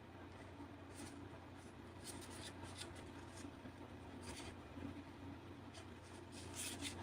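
Faint scratching and rubbing, a few short scrapes a second or two apart, over a low steady hum.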